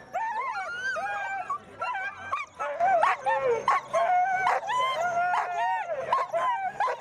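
A group of sled dogs (huskies) barking, yipping and howling, several voices overlapping, louder from about three seconds in.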